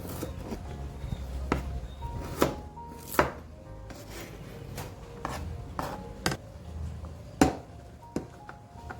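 Kitchen food-preparation knocks: sharp, irregular strikes on a hard surface, roughly one a second, with the loudest one near the end. Faint background music plays underneath.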